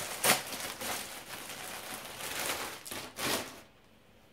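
Packaging crinkling and rustling as a t-shirt is pulled out and unwrapped from a subscription box, with a few sharper crackles among the rustle; it stops about three and a half seconds in.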